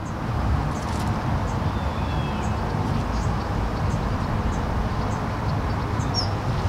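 Steady low rumbling outdoor noise, mostly wind buffeting the microphone, with a few faint ticks scattered through it.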